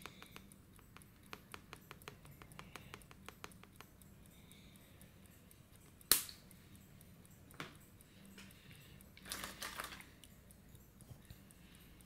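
Small vial of luminous powder tapped with a finger to shake the powder into a mixing pot: a run of light ticks, several a second, over the first few seconds. A single sharp click about six seconds in and a short rustle of handling near ten seconds.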